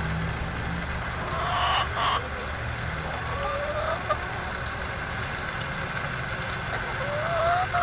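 Chickens clucking, with a few short rising calls here and there, over a steady low rumble.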